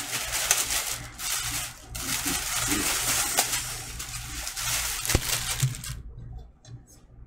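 Plastic bag crinkling and rustling as a turntable platter is pulled out of it, with a short break about two seconds in and a sharp click a little past five seconds. The rustling stops about six seconds in.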